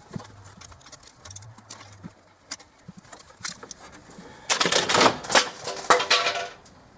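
Metal sockets spilling and clattering: a few scattered light clicks, then a dense burst of rattling metal about four and a half seconds in, lasting about two seconds.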